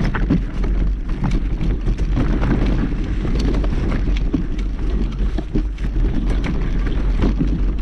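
Wind buffeting the microphone of a camera on a moving mountain bike, a steady low rumble, with frequent small knocks and rattles from the bike rolling over the trail.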